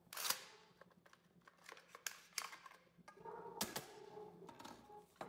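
Stoeger M3000 shotgun being taken apart by hand: several sharp clicks and light knocks of its plastic forestock and metal parts as the forestock is worked off the magazine tube, with faint scraping between them.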